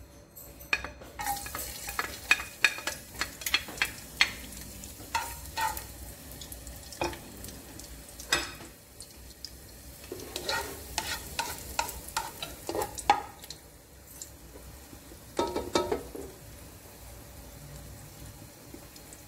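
Chopped garlic sizzling in hot cooking oil in a nonstick pot, with a spatula scraping and knocking against the pot as it is stirred. The sizzle starts about a second in.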